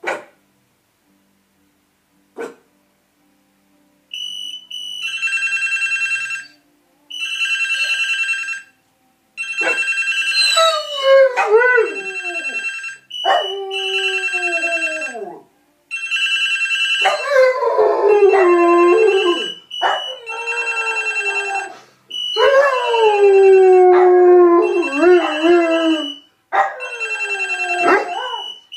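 A phone rings in repeated bursts of about a second and a half, starting about four seconds in. From about ten seconds in, a Doberman howls along with it in falling howls that grow longer and overlap the rings.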